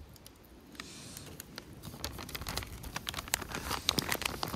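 Plastic ration-heater bag crinkling and rustling as it is handled, the crackle growing busier over the last couple of seconds.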